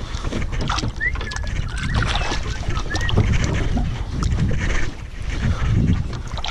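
Low, uneven rumble of wind buffeting the microphone in a small boat, with scattered knocks and clicks from handling the fish and tackle.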